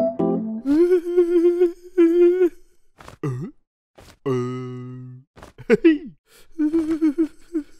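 Cartoon caveman's wordless gibberish vocalizing: a run of short wavering hums and grunts, one sliding down in pitch and one held note, broken by short pauses.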